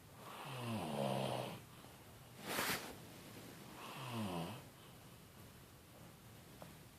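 A man snoring in his sleep: two long snores about three seconds apart, each starting high and dropping in pitch, with a short sharp noise between them.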